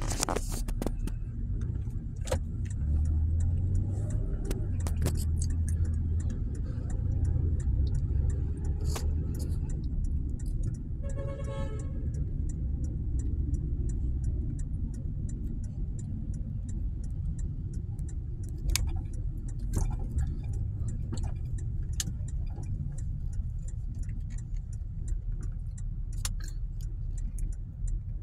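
Steady low rumble of a car's engine and tyres heard from inside the cabin while driving, with scattered light clicks and a brief pitched tone about eleven seconds in.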